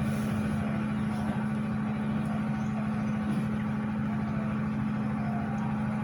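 A steady, unchanging mechanical hum with a low droning tone, like a motor or engine running.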